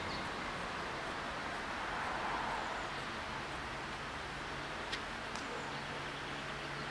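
Steady outdoor background noise, with a faint low hum that comes and goes and a couple of brief high chirps, one at the start and one about five seconds in.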